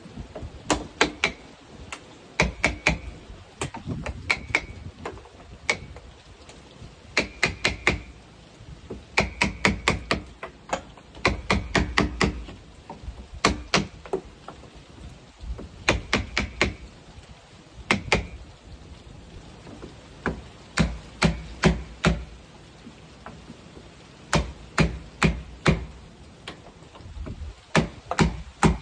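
Hammering: sharp blows come in quick runs of three to six, with short pauses between the runs.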